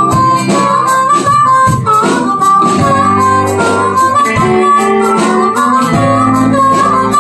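Live blues-rock band with a harmonica solo: a blues harp cupped against a vocal microphone plays a bending, wailing melody over electric guitars, bass guitar and drums.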